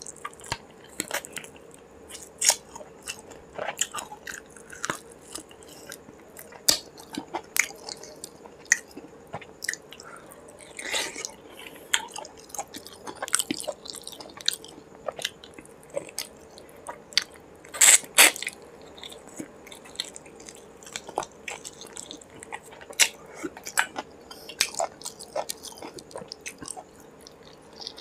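Close-miked eating: a man biting a chicken leg and chewing rice and curry eaten by hand, a steady run of sharp mouth clicks, loudest about 18 seconds in.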